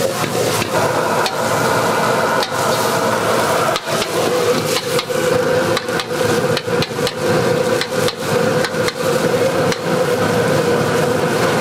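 Steel ladle repeatedly clanking and scraping against a carbon-steel wok as the cook stirs, over the steady roar of a high-power gas wok burner.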